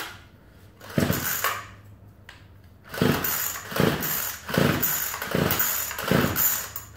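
Remington two-stroke string trimmer being pull-started. There is one pull of the recoil starter cord about a second in, then about six quick pulls in a row, roughly one every 0.8 s. Each pull turns the engine over, but it never catches and runs.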